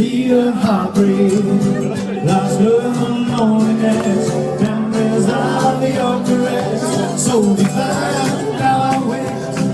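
Party music playing, with singing and a steady beat.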